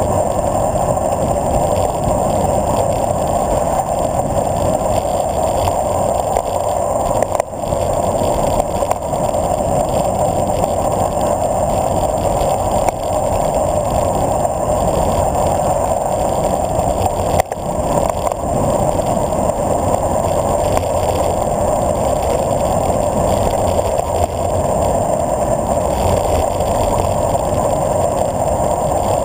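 Steady rush of wind and tyre noise from a bicycle descending a paved road at speed, picked up by a handlebar-mounted camera. It dips briefly twice, about a third and about two thirds of the way through.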